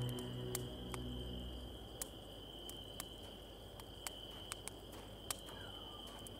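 Night ambience of crickets chirping steadily, with scattered faint ticks. The tail of background music fades out in the first second or so.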